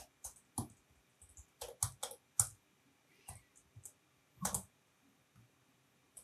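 Computer keyboard being typed on: scattered, irregular key clicks with short pauses between them, one a little louder about four and a half seconds in.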